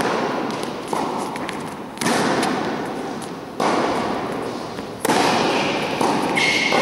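Tennis ball struck by rackets and bouncing on an indoor court during a rally, a sharp hit about every one to one and a half seconds, each followed by a long echo from the large hall. A short high squeak near the end.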